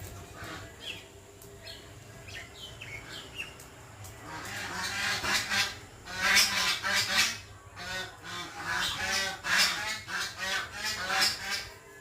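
Animal calls: a few faint high squeaks in the first seconds, then from about four seconds in a long run of loud calls in quick succession.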